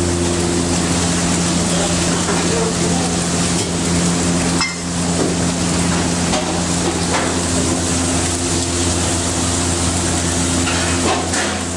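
Scrambled egg sizzling in a black wok, stirred and scraped with a metal spatula, over a steady low hum.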